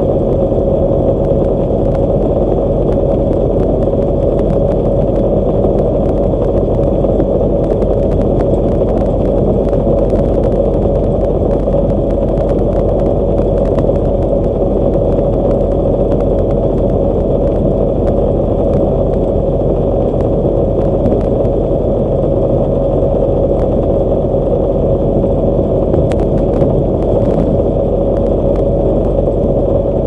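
Steady engine and road noise inside a truck cab driving at highway speed on concrete pavement: a constant low drone with a steady hum on top.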